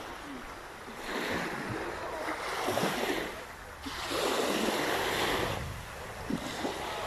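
Sea waves breaking on the shore: surf noise that swells and fades in two long surges.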